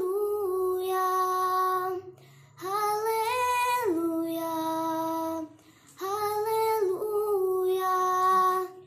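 A girl singing a Hindi Christian worship song solo, with no accompaniment, in three long held phrases with short breaths between them; the last phrase ends near the end.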